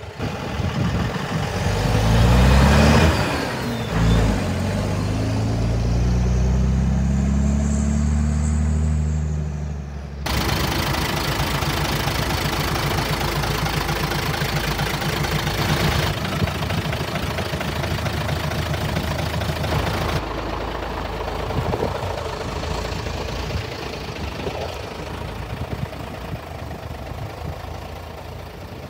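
The diesel engine of a Scania-Vabis LA82 Myrslok 6x6 truck, just started, revs up sharply about two to four seconds in. It holds a fast idle that slowly settles, then runs steadily at idle.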